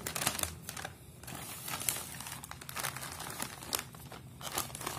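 Clear plastic bag crinkling and rustling as hands open it and handle the wiring harness and manual packed inside, with many small irregular crackles.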